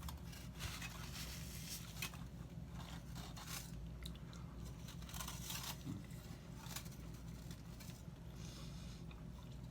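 A person biting into and chewing a soft chicken fajita taco: faint, irregular mouth and eating noises over a steady low hum.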